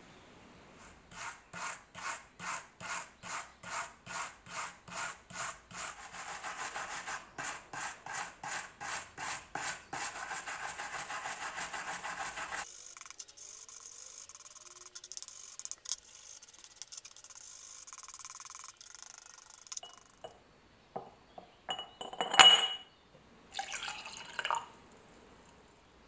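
Small wire brush scrubbing the rusty metal body of an old lighter in quick back-and-forth strokes, about two a second, then faster and steadier, then fainter. Near the end come a few sharp knocks; the loudest is a ringing metallic clink.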